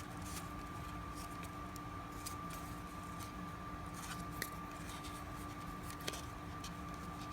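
Faint scratchy rustles and small ticks of old trading cards being peeled apart and handled, the packs' cards stuck together with age, over a steady background hum.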